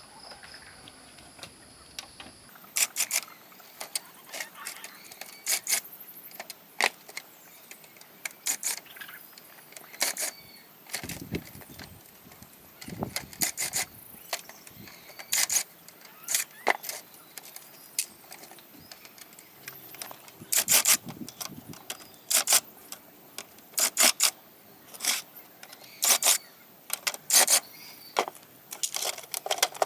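Irregular sharp clicks, clinks and short scrapes of hand tools and small parts being handled while an old TV set is worked on, with a few duller knocks partway through.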